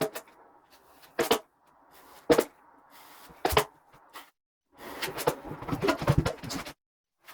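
Drywall work with a knife and premixed joint compound: sharp knocks and scrapes of the metal knife about once a second, then a dense run of rapid scraping knocks near the end.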